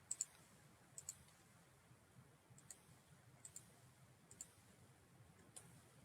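Computer mouse clicking, scattered single clicks and a few quick pairs, over near-quiet room tone.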